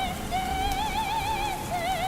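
Operatic soprano singing long held notes with wide vibrato, in a recording processed to sound distant, over a low noisy background.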